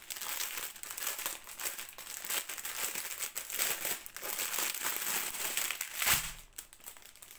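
Clear plastic wrapping and foil drill packets crinkling as the bag is pulled off a strip of diamond painting drill packets, with one louder crackle about six seconds in, then quieter.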